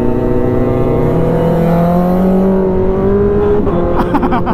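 Inline-four sport bike engine of a Honda CBR1000RR pulling steadily in gear, its pitch rising gently as it accelerates. Near the end the sound changes abruptly to another motorcycle engine with a voice.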